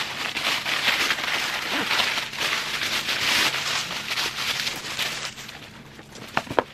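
Tissue paper crinkling and rustling as it is pulled out of a gift box, dense for about five seconds, then quieter with two sharp clicks near the end.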